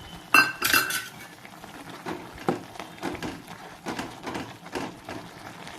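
A metal utensil stirring a thick dough of rice flour and potato in a kadhai: a ringing clang about half a second in, then irregular knocks and scrapes against the pan.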